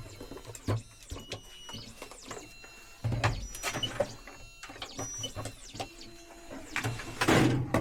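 Key-cutting machine cutting a new car key blank: a running mechanism with clicks and louder cutting passes about three seconds in and again near the end.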